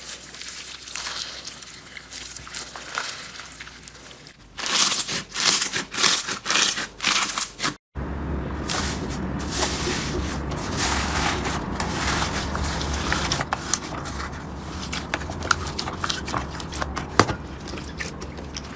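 Slime squeezed and pressed by hand, giving crinkly, crackling sounds with many small pops and clicks. The sound cuts out for an instant about eight seconds in, then carries on with a steadier crackle.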